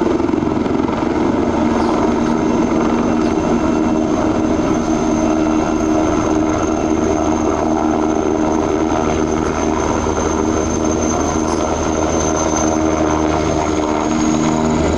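Eurocopter Tiger attack helicopter flying past, its rotor and twin turboshaft engines running steadily, with a thin high turbine whine above the rotor sound.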